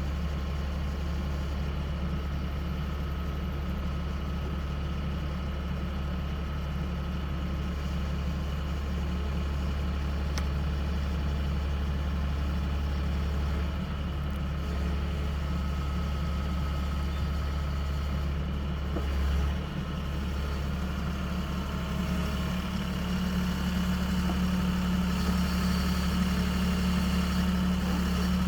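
Backhoe engine running steadily with a low drone, growing a little louder near the end.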